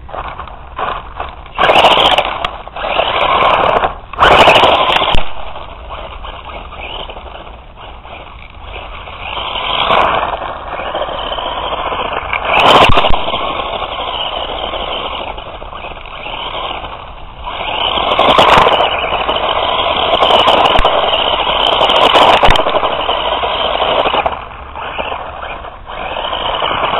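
A radio-controlled car's small engine buzzes and revs as the car drives around on gravel. It swells loud several times as the car passes close and fades between passes.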